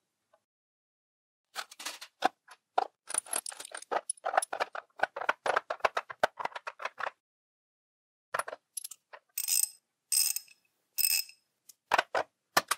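Steel hex bits clicking and clattering as they are set into a 3D-printed plastic tray inside a metal bit case: a quick run of clicks for several seconds, then, after a pause, about six separate ringing metal clinks.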